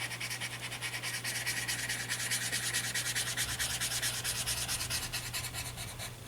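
Paper tortillion rubbing graphite into drawing paper in quick, even back-and-forth strokes, blending the shading.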